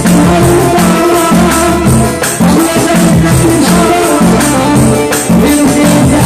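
Live Rai band music played loud: keyboard with a bass line in repeated short notes over a steady percussion beat.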